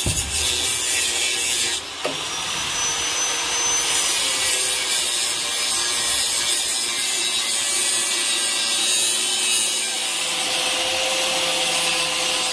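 Angle grinder with a cutoff wheel cutting steel strip, running steadily under load with a short dip about two seconds in.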